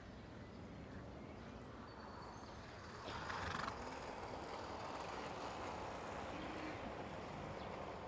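A Konik horse herd moving and grazing: a steady low rustle, with a short louder sound about three seconds in.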